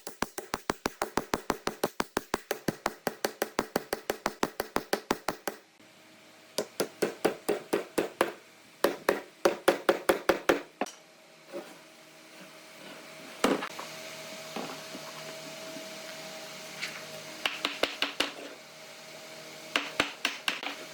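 Rapid, even knocking, about six strikes a second, like hammering or tapping on wood, then bursts of strikes. After that a steady machine hum with a single loud knock and a few short clusters of clicks.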